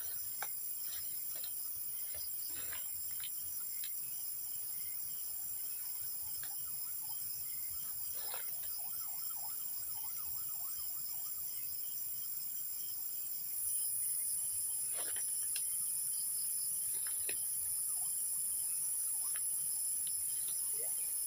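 A steady high-pitched chorus of night insects, crickets, which steps up louder about two-thirds of the way through. Scattered light rustles and snaps of leaves and twigs are heard as the brush is pushed through.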